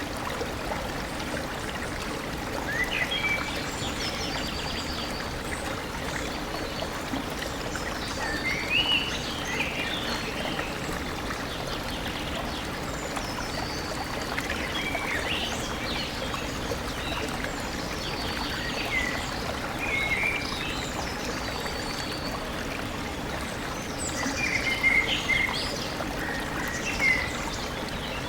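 A stream flowing steadily, with small birds chirping and trilling at intervals over the water's rush.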